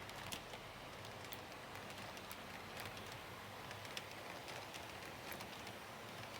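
An HO gauge model train running on its track, a faint steady whir with scattered small clicks.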